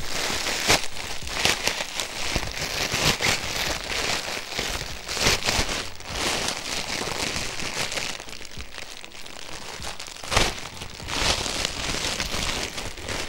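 Plastic packaging crinkling and rustling as a parcel is unwrapped by hand, with sharper crackles now and then.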